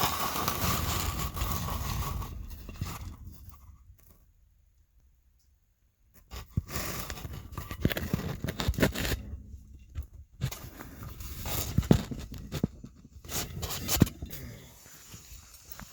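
Close rustling and scraping, then a near-silent gap of about two seconds, then scattered sharp knocks and scrapes.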